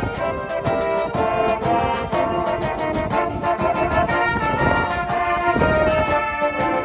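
Brass band playing live: held brass chords and melody from trumpets, trombones and tubas over a steady beat on drum kit and cymbals.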